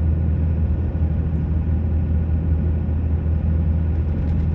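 Steady low drone of a pickup truck's engine and road noise heard from inside the cab, the truck pulling a heavy trailer load up a snowy mountain pass in four-wheel drive.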